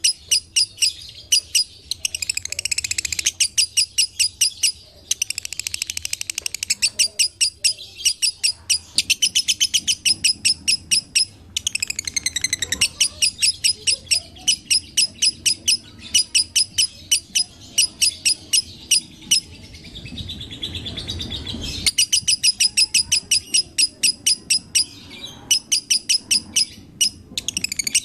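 Lovebird chattering: rapid runs of shrill chirps, several a second, broken by short pauses.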